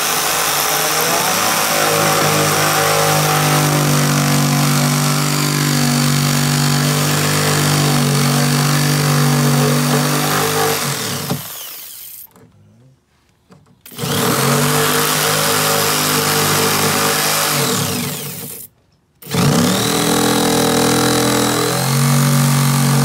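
Electric drill fitted with a curve-saw bit cutting a wider driver opening in a wooden speaker baffle. The motor runs at a steady pitch, winds down and stops twice, starting up again a second or two later each time.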